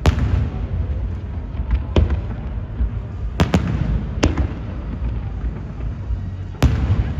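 Fireworks display: sharp bangs of aerial shells bursting, a pair in quick succession about halfway, and a loud one near the end, over a continuous low rumble of more distant bursts.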